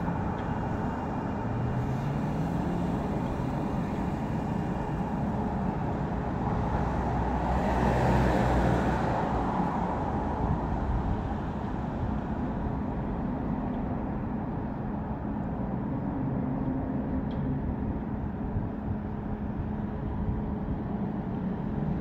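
Steady low rumble of vehicle noise with faint engine tones, swelling louder for a couple of seconds about eight seconds in.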